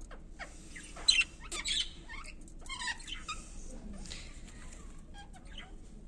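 Budgerigars chirping and chattering in short, quick, high calls, clustered in the first half.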